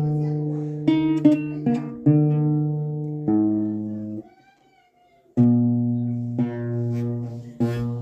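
Guitar played in short phrases, each plucked note or chord ringing on. It stops for about a second roughly four seconds in, then a new chord is struck and the phrase goes on.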